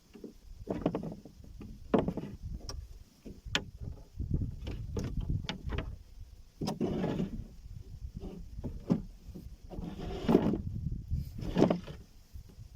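Irregular knocks, bumps and scrapes of gear and a boat being handled, with several sharp clicks among them.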